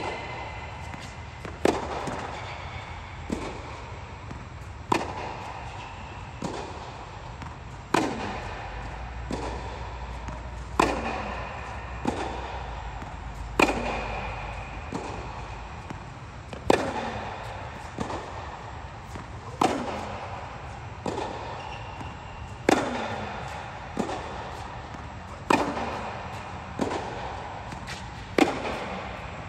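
Tennis racket striking the ball on groundstrokes, a loud crisp hit about every three seconds with a fainter knock between each pair, every one followed by a short echo from the indoor tennis dome.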